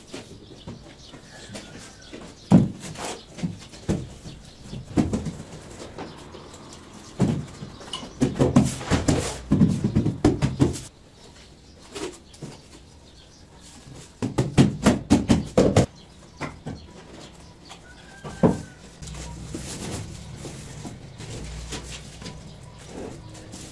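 Hand tools knocking and tapping on stone, masonry work, with scattered single knocks and two quick runs of rapid strikes near the middle.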